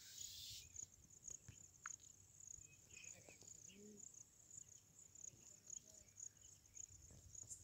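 Faint insects chirping: a high, even chirp repeated about three times a second.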